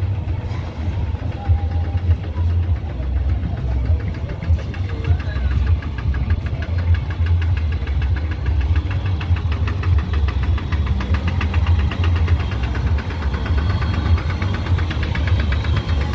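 Vintage tractor engine running slowly as it pulls a parade float, its fast, even beat growing clearer as it comes close past.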